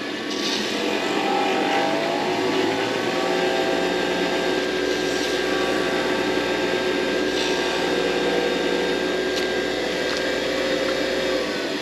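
Wood lathe motor spinning up over the first few seconds with a rising whine, running steadily, then winding down near the end.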